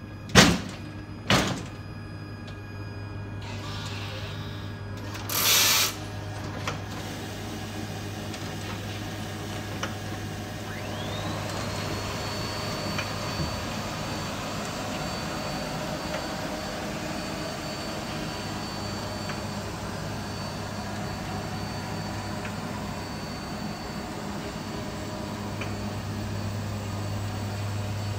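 Kegel FLEX lane machine knocking twice as it is set onto the lane, then, about eleven seconds in, its motor spinning up with a quick rising whine that settles into a steady high whine as the machine runs down the lane applying oil. A short rushing noise comes a few seconds before the motor starts.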